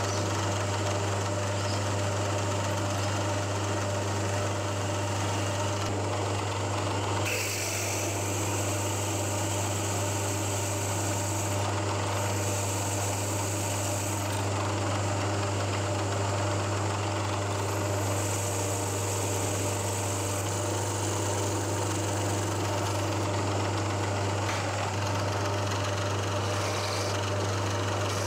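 Milling machine spindle running while a drill bores through a steel clamp for an M8 tapped hole: a steady motor hum throughout, with several stretches of higher-pitched cutting noise as the bit works into the metal.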